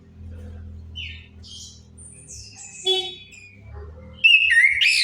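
Orange-headed thrush song: a string of varied whistled phrases with a buzzy note in the middle and the loudest phrase near the end. A faint low hum lies underneath.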